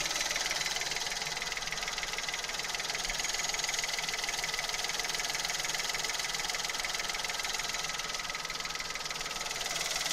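PSA EB2 1.2-litre three-cylinder petrol engine idling, with a steady high whistle from a fuel injector above the engine's running noise.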